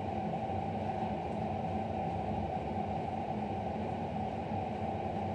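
Steady low rumble of room noise with a faint hiss, holding level throughout.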